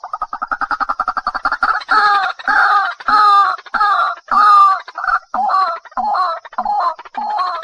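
Waterhen calling: a fast stutter of short notes that about two seconds in turns into loud repeated calls, roughly two a second.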